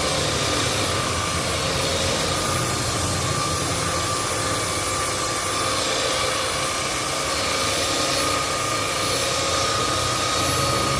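Maktec electric sander running steadily, a constant motor whine over a hiss.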